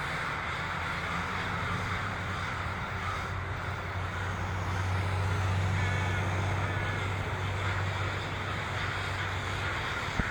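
A huge flock of crows cawing all at once in a dense, continuous chorus, over a steady low vehicle rumble that swells about halfway through. A sharp click comes just before the end.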